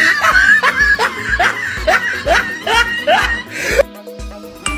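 Background music with a steady beat, overlaid by a quick run of short rising squeaky notes, about three a second, that stops shortly before the end.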